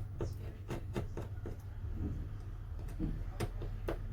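Light, irregular clicks and taps of small repair tools working on the opened Samsung Galaxy S20+'s internal parts, over a steady low hum.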